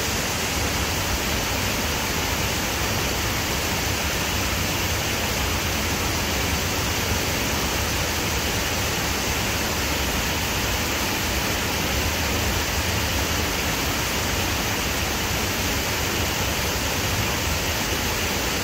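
Waterfall running steadily: an even, unbroken rush of falling water.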